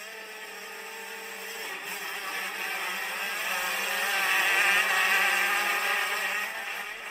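An engine running and revving, swelling louder to a peak about two-thirds of the way through, then fading.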